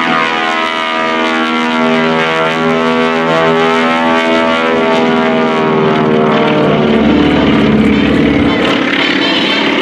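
Twin Beech 18's two 450-horsepower Pratt & Whitney R-985 radial engines droning steadily as the plane flies a slow, low pass with gear and flaps down. The engine pitch slowly shifts, and a deeper rumble builds from about seven seconds in.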